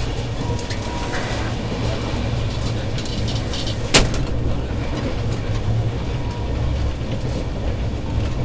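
Steady rumble of an express passenger train running at speed, heard from inside the coach, with one sharp knock about four seconds in.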